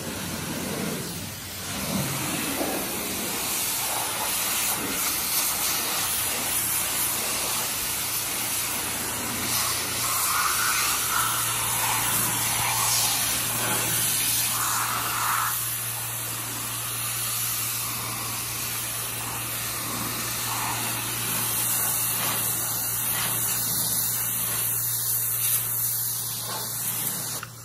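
Pressure washer jet spraying water against a jet ski's hull and seat: a steady, loud hiss with a steady low hum underneath.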